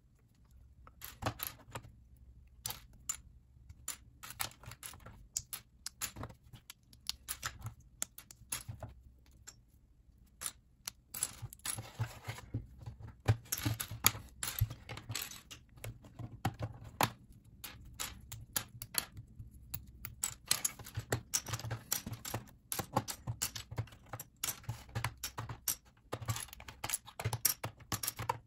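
LEGO plastic bricks and plates being pulled apart by hand and set down on a table: a run of sharp little clicks and clatters, sparse at first and much busier from about eleven seconds in.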